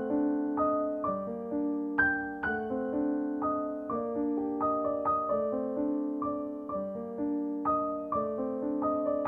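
Background music: solo piano played softly, single notes struck at an even, unhurried pace of about two a second, each ringing and fading.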